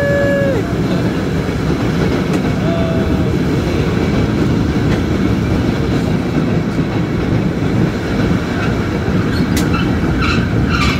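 San Francisco cable car rolling along its track, a loud steady rumble and rattle of the wheels on the rails and the cable running in the slot beneath the street.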